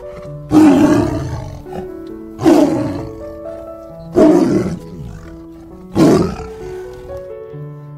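Tiger roaring four times, about every two seconds, each roar starting sharply and fading, over background music.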